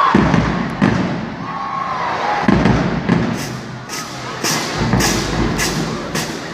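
Marching drumline playing in an arena: a few scattered heavy bass-drum thumps over crowd whoops, then sharp drum and cymbal hits settling into a steady beat about twice a second in the second half.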